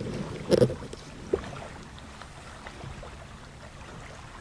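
Steady wind noise and small waves lapping. A single sharp bang comes about half a second in, followed by a faint click.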